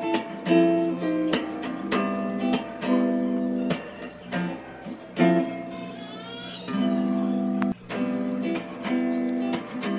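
Background music: acoustic guitar strumming and plucking chords.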